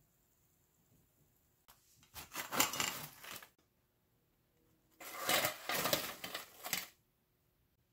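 Two bouts of clattering and scraping, the first about two seconds in and the second about five seconds in; the second is freshly fried dumplings being tipped from a wire strainer onto a metal baking tray.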